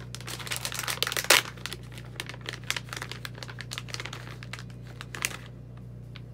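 Plastic bait bag of Z-Man Jerk Shad soft plastic lures crinkling and crackling as it is opened and the lures are pulled out. The loudest crackle comes just past a second in, and the crinkling stops about five and a half seconds in.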